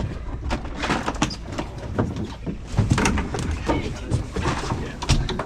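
Repeated knocks and thumps on a boat deck as gaffs are worked out of freshly landed tuna, under indistinct voices.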